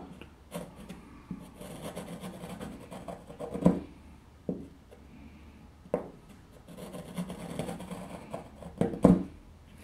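Metal spatula scraping along a model railroad rail and dried joint compound, shaving the road surface down below the rail. It goes in slow strokes, with a few sharp clicks between them.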